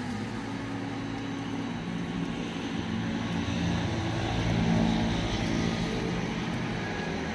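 A motor vehicle's engine running steadily with a low hum, getting a little louder about four to five seconds in.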